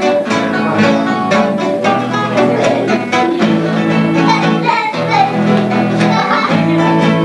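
Nylon-string classical guitar played solo in the instrumental break between verses of a caipira song: chords strummed in an even rhythm with a melody picked under them.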